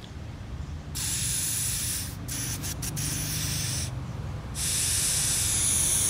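Air hissing through a Mazda Skyactiv PCV valve as it is blown into through a rubber hose, in two long blows, the first with a few brief breaks. The air passes freely in this direction, as it should through a working one-way valve.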